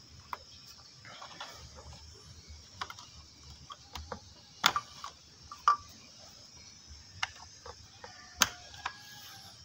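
Plastic wiring connectors on an electric bike's controller being pushed and snapped together by hand, with irregular sharp clicks and small knocks among rustling wires, the loudest clicks about halfway through and shortly before the end.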